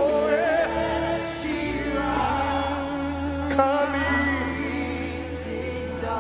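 Live gospel worship music: sung vocals with vibrato over sustained keyboard and bass.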